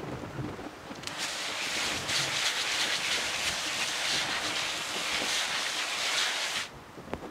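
Water spraying onto a compost pile of dry leaves and kitchen scraps to moisten it. The hiss starts about a second in and cuts off sharply near the end.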